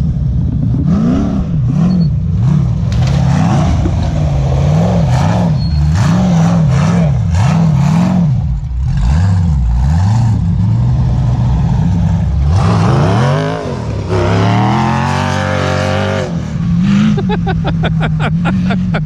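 Sandrail's 6.0-litre LS V8 revving hard in repeated bursts, its pitch rising and falling over and over while it works to pull free of mud. About thirteen seconds in it climbs in one long rev, then settles to a steadier rumble near the end.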